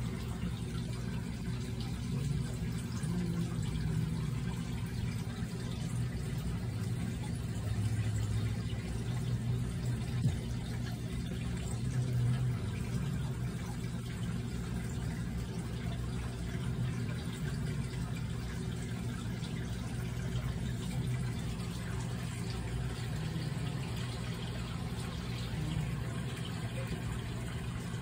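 Steady low hum under a faint even hiss, like a small motor or pump running.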